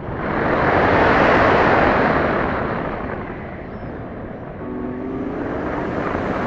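Airflow rushing over the onboard camera of a small model airplane in flight. It swells about a second in, eases off, then builds again toward the end, with a faint pitched hum showing through briefly in the second half.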